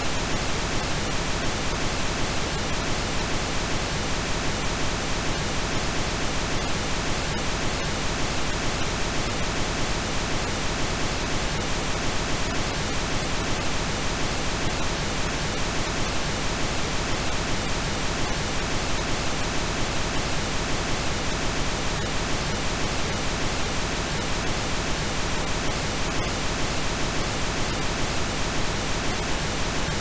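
Steady, unchanging synthesized pink noise: an even hiss spread across all pitches.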